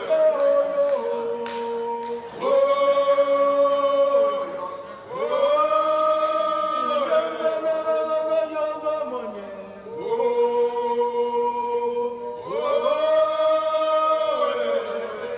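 Choir singing without instruments in the played music track: a series of held chords, each phrase sliding into its note and sustained for about two to three seconds.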